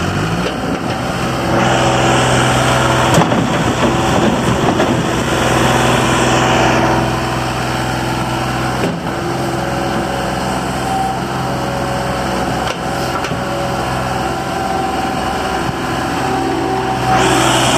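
Diesel engine of a John Deere 250 skid steer loader running steadily at a constant pitch. A louder rushing noise joins from about a second and a half to seven seconds in, and again near the end.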